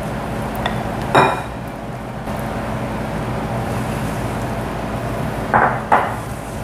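A silicone spatula scrapes and folds in glass mixing bowls, with a sharp ringing glass clink about a second in and two knocks near the end, over a steady background hum.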